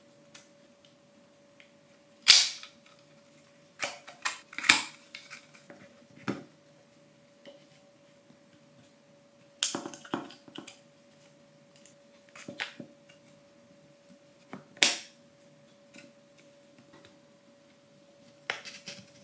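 Sharp snaps and clicks of laser-cut plywood kit pieces being worked by hand, about ten scattered through the stretch, some in quick pairs. A faint steady hum lies underneath.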